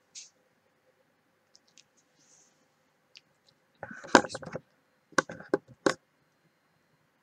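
Handling noise on a handheld microphone held at the mouth: a few faint ticks, then a cluster of clicks and knocks about four seconds in, and a handful of sharper clicks a second later.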